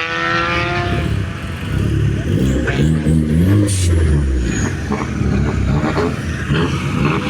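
Rally car engine at the start line, revved up and down in several throttle blips about two to four seconds in, with a few sharp cracks among them; the engine runs on roughly afterwards.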